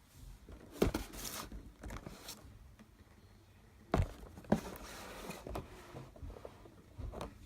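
Handling noise from a plastic toy: a few sharp clicks and knocks with rustling between them.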